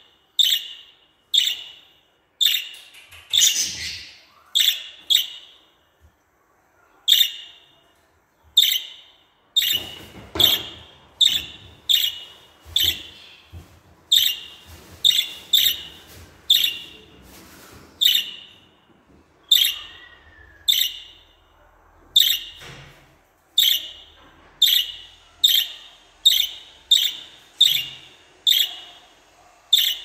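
Budgerigar making short, sharp, high contact calls over and over, about once a second, with a few brief pauses.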